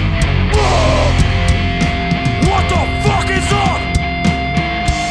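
Hardcore punk band playing live: distorted electric guitars over a drum kit, with regular drum and cymbal hits and some pitch-bending notes in the middle.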